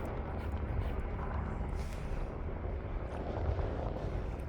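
Strong gale wind buffeting the microphone: a heavy, constantly fluctuating low rumble with rushing noise above it.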